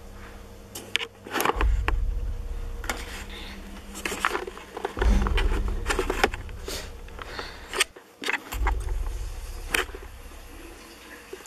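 Deep rumbling booms, each swelling up suddenly and fading away, repeating about every three and a half seconds like a slow horror-film pulse, with scattered sharp clicks and knocks over them.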